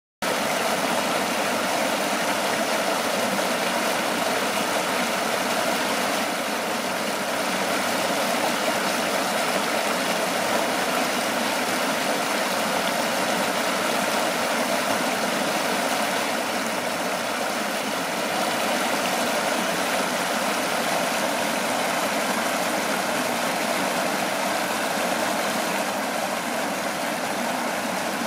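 Shallow river water rushing and churning over stones and a small drop, a steady rushing hiss without a break.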